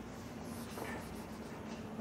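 A cloth duster rubbing across a whiteboard, wiping off marker writing: a faint, soft scrubbing.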